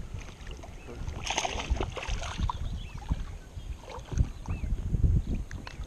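Lake water lapping and sloshing close to the microphone as a hooked small bass is reeled in and splashes at the surface, with the loudest splash a little over a second in. A few short high chirps sound now and then.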